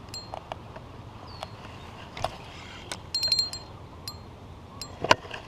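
A spinning or casting fishing reel making irregular light metallic clicks and ticks as the line is worked against a fish snagged in weeds. A quick run of clicks comes about three seconds in, and a sharper click comes near the end.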